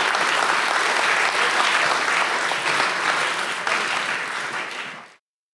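Audience applauding, easing off near the end and then cut off abruptly.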